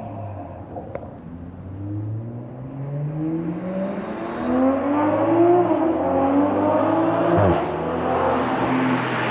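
MK5 Toyota Supra with an HKS titanium exhaust and catless downpipe accelerating through the gears. The exhaust note climbs in pitch and grows louder. It drops back at an upshift about halfway through and again at another shift near the end.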